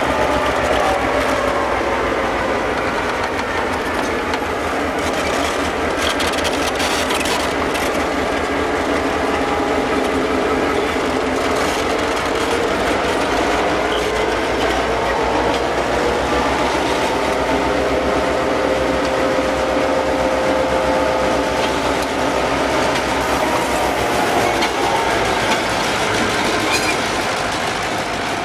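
A pair of Irish Rail 121 Class diesel locomotives running light past at close range, their EMD two-stroke diesel engines sounding steadily with a slowly shifting pitch. The sound fades slightly near the end as they draw away.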